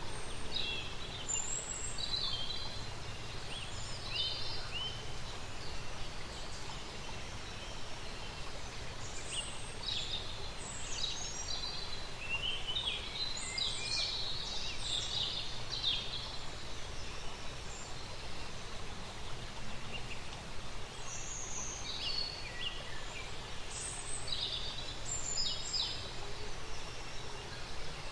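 Songbirds chirping and singing over a steady hiss of nature ambience, with the calls busiest around the middle and again near the end.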